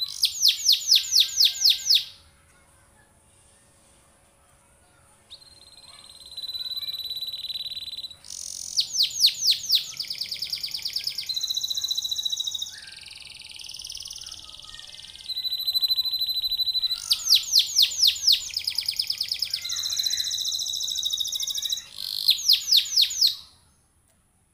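Canary singing in long phrases: steady high trills alternating with fast rolls of rapidly repeated sweeping notes. It falls quiet for about three seconds after the first phrase and stops just before the end.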